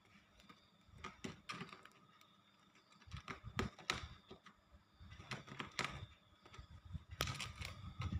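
A black cat coughing: short, sharp hacks in quick pairs or threes, repeated every two seconds or so.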